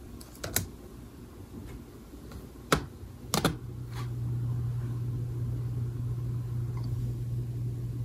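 A few sharp clicks on an iBook G4's trackpad button and keys as the laptop is told to shut down. Then, about three and a half seconds in, a steady low hum starts and keeps going.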